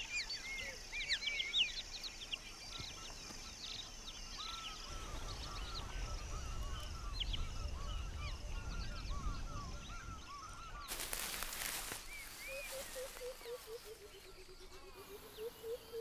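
Outdoor bush ambience: many small birds chirping and calling for most of the time, over a low rumble in the middle. About eleven seconds in there is a brief burst of hiss, followed by a low, drawn-out, wavering tone to the end.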